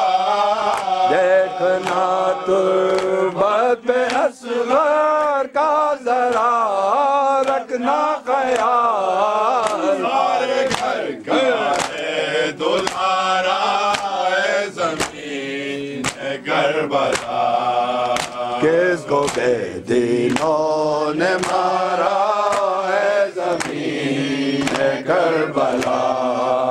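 Male voices chanting a noha, the mourning lament of Muharram, with hands slapping chests in a steady rhythm (matam) under the singing.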